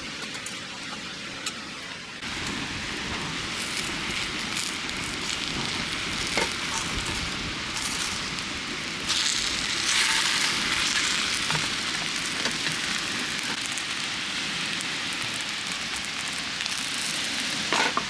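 Food sizzling in a hot oiled pan, a steady frying hiss that grows louder about two seconds in and again at around nine seconds, with a few light clicks.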